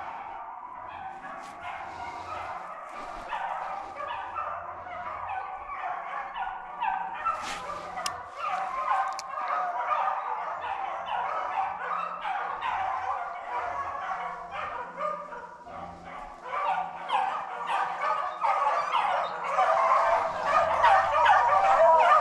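A pack of beagles baying and yelping in steady repeated cries as they run a rabbit's scent trail. The chorus grows louder near the end.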